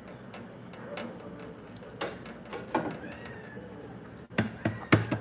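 Several knocks and clatters of kitchen items being handled, a few spread through and a louder cluster near the end, over a steady high-pitched whine.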